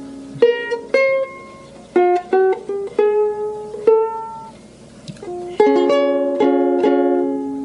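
A 1944 ukulele played by hand in a small room: single strings plucked and several chords strummed, each note ringing and fading. A cluster of plucks comes about two seconds in, and a longer strummed, ringing passage starts near the sixth second.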